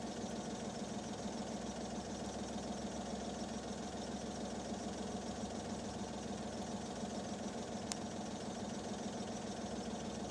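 A steady, unchanging low engine drone, with a single sharp click near the end.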